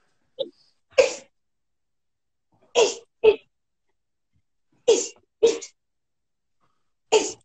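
Sharp, forceful exhaled breaths of a boxer shadowboxing, one with each punch, coming in quick pairs about every two seconds as he throws a hook to the body and an uppercut; four pairs in all.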